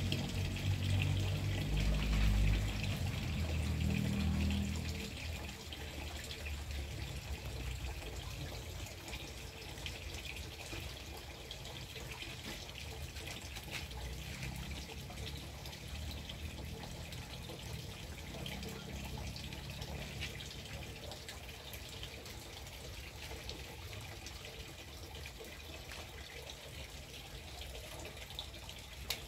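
Steady rain falling on garden plants, a continuous hiss with many small drop ticks. A louder low rumble sits under it for the first five seconds.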